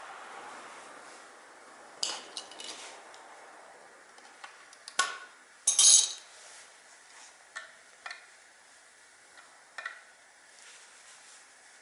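Metal tools and parts clinking and clattering as they are handled, in a scatter of sharp knocks with a short rattle about six seconds in, the loudest moment.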